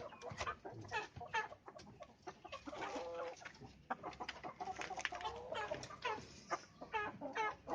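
Domestic chickens clucking in a steady string of short calls, some falling in pitch. The calls come from a bird the keeper says has recovered from ngorok, a respiratory illness that makes chickens snore.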